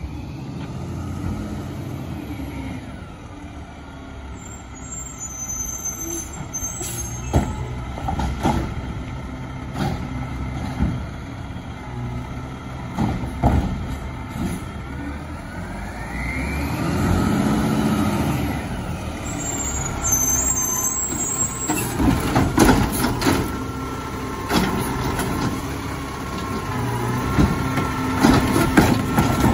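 Peterbilt 520 garbage truck with a Bridgeport Ranger automated side-loader pulling up, its engine running and rising in pitch around the middle, with air-brake hisses. In the later part its hydraulic arm grabs and lifts a cart, with repeated knocks and clunks of the arm and cart.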